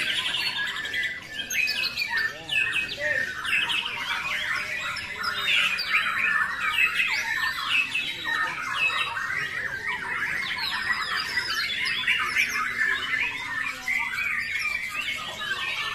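Many caged white-rumped shamas (murai batu) singing at once: a dense, unbroken mix of whistles, rapid trills and harsh squawks with no pause.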